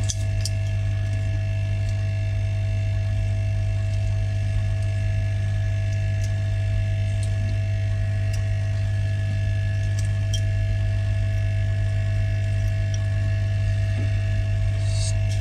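Steady low electrical mains hum with a few faint higher steady tones, and a few faint small clicks from a precision screwdriver working on phone parts.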